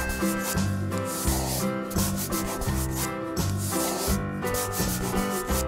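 Scratchy scribbling sound effect of coloring in, coming in repeated short strokes over background music with a steady bass line.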